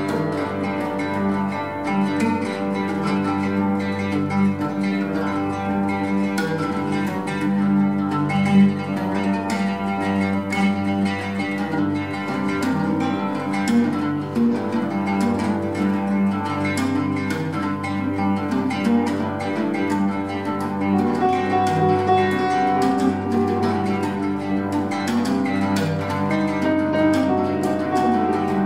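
Oud and grand piano duet: dense, rapid plucked oud notes over held low piano tones, played without a pause.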